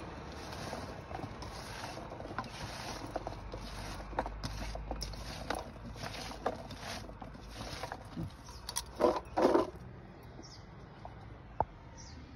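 Hand tossing sliced carrots and cucumber in a stainless steel bowl: rhythmic rustling swishes with small clicks of the pieces against the metal, and a short burst of louder handling noise about nine seconds in.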